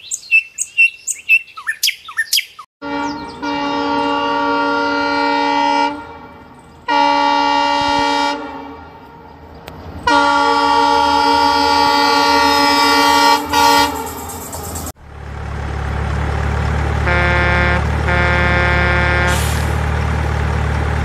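A quick run of chirpy blips, then three long train-horn blasts at one steady pitch, of roughly three, one and a half and four seconds. About fifteen seconds in the sound changes to a steady low truck-engine rumble, with a horn beeping twice over it.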